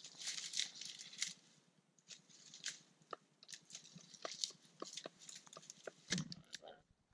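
Dry grass and brush crunching and rustling as a person shifts and steps through it: irregular crackles and short crunches, with a denser flurry in the first second and again about six seconds in.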